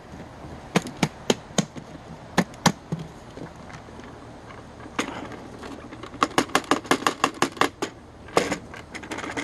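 Sharp plastic clicks and knocks from a clear plastic upright-vacuum dirt cup being handled and its latch worked on a wooden deck. There are a few single clicks at first, then a quick run of about eight taps, about five a second, in the second half, and a short clatter near the end.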